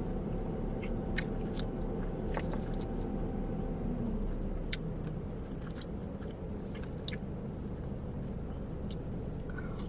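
Close-up chewing and crunching of fried Chinese takeout food, with scattered sharp crunches and clicks over a low steady rumble.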